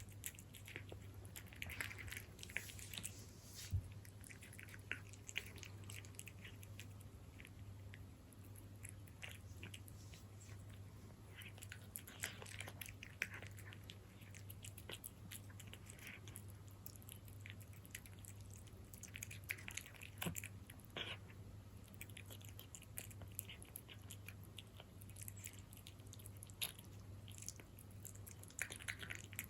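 A cat chewing Felix beef-in-jelly wet cat food: faint, irregular wet clicks and smacks in clusters, over a steady low hum.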